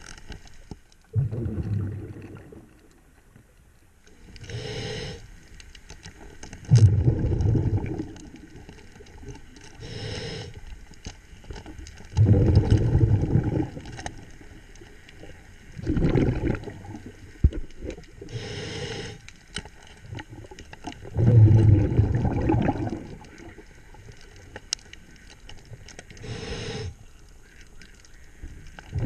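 A diver breathing through a regulator underwater, about five breaths. Each breath is a short hissing inhale followed by a longer, louder low bubbling as the exhaled air escapes.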